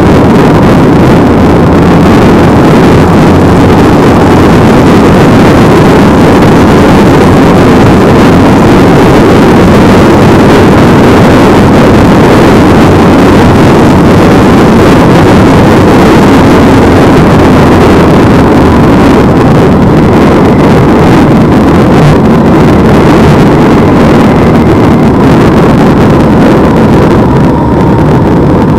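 Motorcycle engine running steadily at road speed, mixed with loud wind rushing over the microphone while riding.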